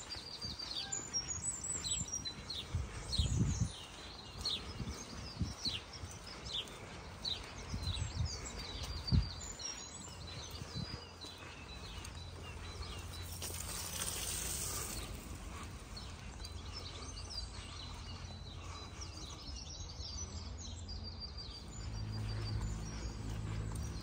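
Small songbirds chirping and singing repeatedly, busiest in the first half, over outdoor background noise with a few low thumps early on. A brief hiss comes midway and a steady low hum comes in near the end.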